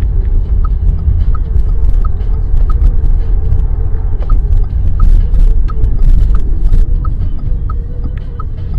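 Car driving on a city road, heard from inside the cabin: a loud, steady low rumble of engine and tyre noise with scattered knocks. A short high beep repeats evenly about once every two-thirds of a second.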